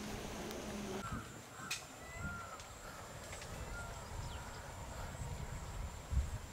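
Outdoor ambience of wild birds giving short calls over a faint, steady high insect drone, with a low thump near the end. For the first second, water sloshing with a low steady hum under it, which stops abruptly.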